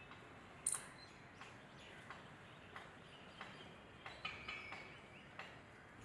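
Faint bird calls: soft ticks repeating evenly about one and a half times a second, with a short chirping call a little past four seconds in.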